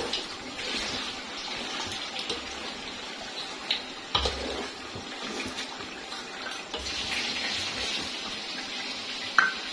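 Beef and whole spices sizzling steadily in hot oil in a cooking pot, with a few short knocks, the loudest near the end.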